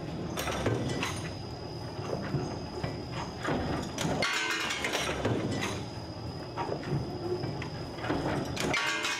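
Cold heading (cold forging) machine running, its press striking over and over with a metallic clatter as headed steel blanks drop out. A brief break about four seconds in.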